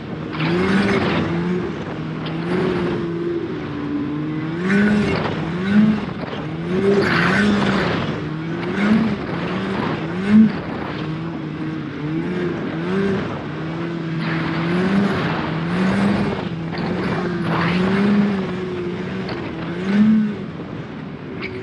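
Snowmobile engine running under way, its pitch rising and falling every second or so as the throttle is worked, with bursts of rushing noise over it.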